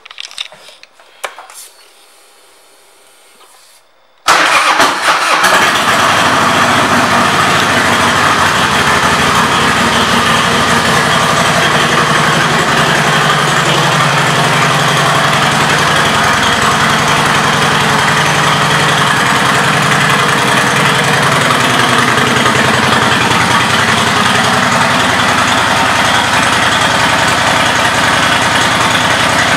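After a few clicks, a 2005 Harley-Davidson Softail Night Train's Twin Cam 88B V-twin fires up about four seconds in and settles into a steady idle through aftermarket Screaming Eagle exhaust pipes.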